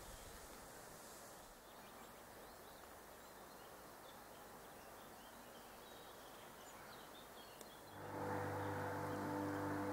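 Quiet outdoor ambience with a few faint, sparse bird chirps. About eight seconds in, a louder steady drone of several held low tones sets in and carries on.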